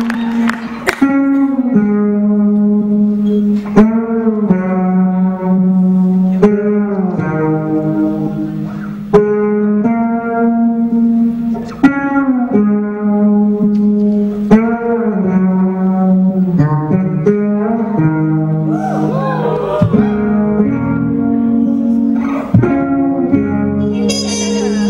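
Instrumental music played over the sound system, with long held pitched notes over a heavy beat that falls about every two and a half seconds; some notes bend and waver about three-quarters of the way through.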